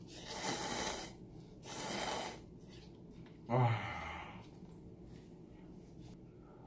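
A person slurping instant cup noodles, two long slurps one after the other, then a short low "ah" of breath about three and a half seconds in.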